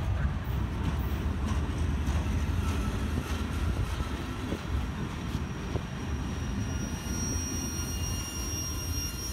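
Freight cars of a CSX manifest train rolling past: a steady low rumble of wheels on rail with scattered clicks. A high, steady wheel squeal joins near the end.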